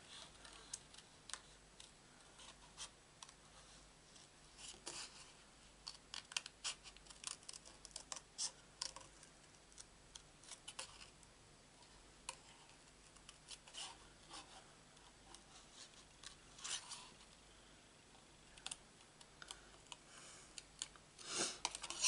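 Scissors snipping through cardstock by hand, fussy cutting around a small stamped shape: quiet, irregular snips with pauses between runs of cuts.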